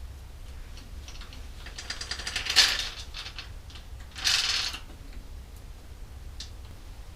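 Fast ratcheting clicks from work on a bicycle's rear derailleur, in two short bursts about two seconds apart, with a few scattered light ticks around them.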